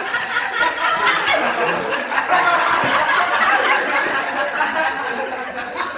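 Studio audience laughing: many voices overlapping in a continuous wash of laughter.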